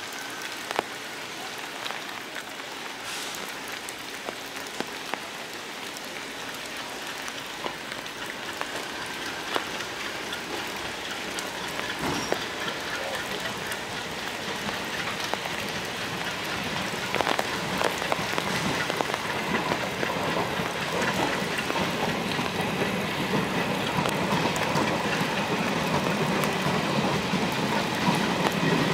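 Steady rain falling, with scattered sharp drop ticks. A diesel-hauled passenger train's rumble grows louder through the second half.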